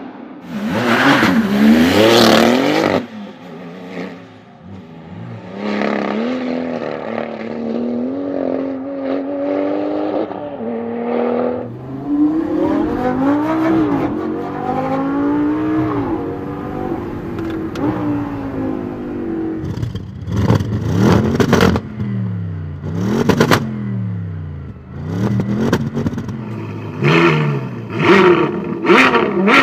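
Supercar engines revving and accelerating through the gears, several cars heard in turn. Near the middle and end there are quick pass-bys, each with the engine note climbing and then dropping as the car goes past.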